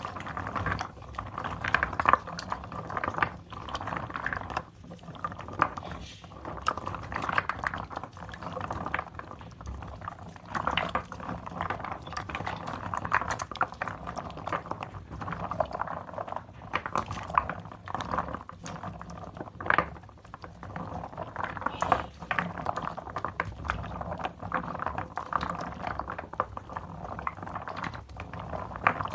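Soaked, mushy soap and its foam being squeezed and worked by hand: an unbroken run of wet squelches with many small irregular clicks and pops.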